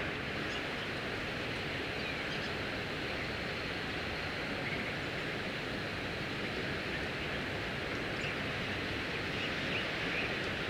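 Steady outdoor background noise, with a few faint, short bird chirps, most of them near the end.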